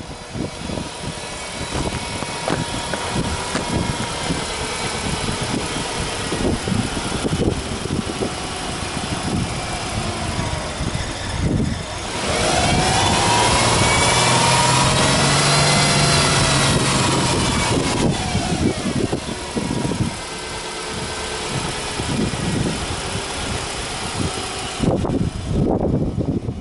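Subaru Impreza hatchback 1.5i-S's flat-four boxer engine idling with the hood open. About twelve seconds in it is revved once in a held free-rev: the pitch climbs, holds, and falls back to idle over some six seconds.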